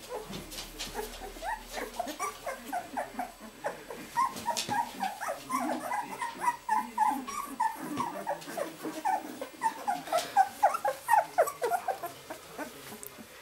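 A litter of young puppies squeaking and whimpering: many short, high squeaks, several a second and overlapping, growing busier and louder from about four seconds in.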